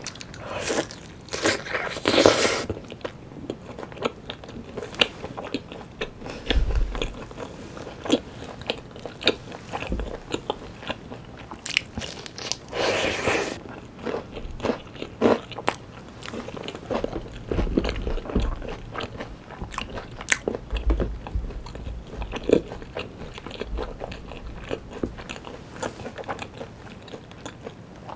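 Close-miked eating of sauce-coated Korean fried chicken: crunchy bites into the fried coating, loudest in the first couple of seconds and again about thirteen seconds in, with steady chewing and many small wet clicks in between.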